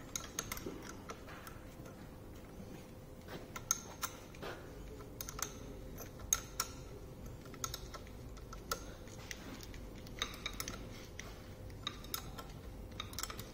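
Scattered light metallic clicks and clinks of a hand wrench working the centre bolt of a jaw puller on the shaft of a Tesla Model S electric drive motor, coming singly and in small clusters, over a faint steady hum.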